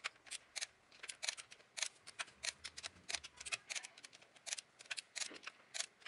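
Ratchet wrench clicking as it tightens the camshaft bearing-cap nuts on a BMW M44 four-cylinder head: short quick runs of sharp clicks, a few each second, as the handle swings back between turns.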